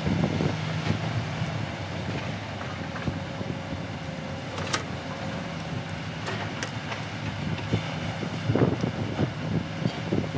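Steady low machine hum, with rag rubbing and a hand tool scraping at a metal coolant pipe fitting, a sharp click about halfway through and a run of scraping strokes near the end.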